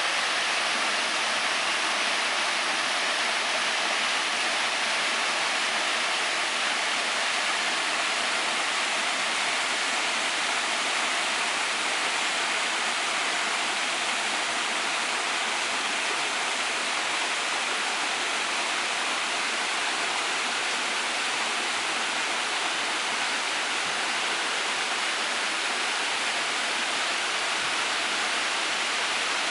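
Waterfall: a steady rushing hiss of falling water, even throughout, with little low rumble.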